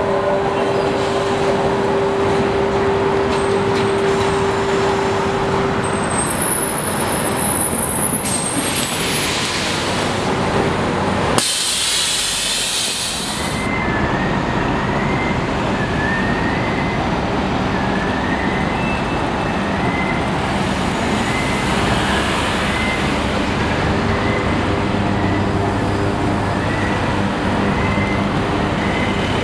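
Busy street traffic with electric trolleybuses stopping and moving off: a steady whine for the first several seconds, then two loud bursts of air hissing from bus air brakes. In the second half a short high chirp repeats about once a second over the traffic.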